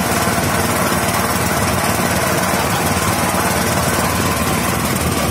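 A katinting boat's small single-cylinder petrol engine running steadily with a fast, even pulse.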